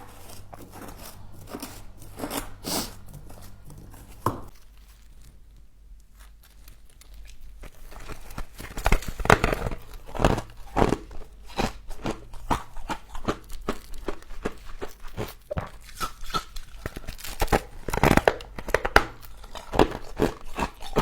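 Humidifier frost crunching as it is bitten and chewed: scattered quieter crackles at first, then a dense run of loud, sharp crunches from about eight seconds in.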